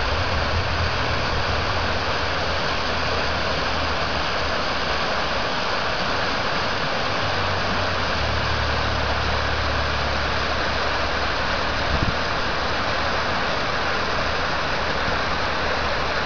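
Water rushing through the rubble of a breached concrete dam, a steady noise, with a large diesel excavator's engine idling low underneath, louder from about halfway through. A single brief knock comes about three-quarters of the way in.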